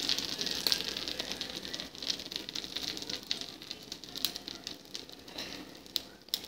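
Pancake batter sizzling in butter in a nonstick frying pan, a fine crackle that slowly grows quieter.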